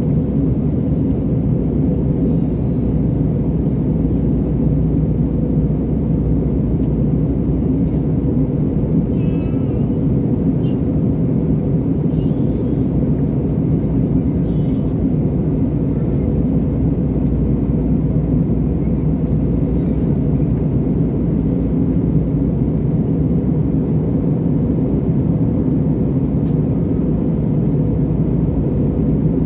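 Steady low drone of an aircraft in flight, heard from inside the cabin: engine and airflow noise at an even level throughout.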